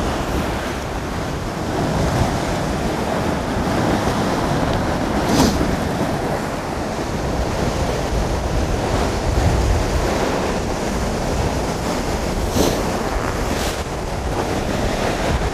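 Sea surf breaking and churning against rocks, with wind buffeting the microphone in a deep rumble. A few short sharp knocks stand out, one about five seconds in and two near the end.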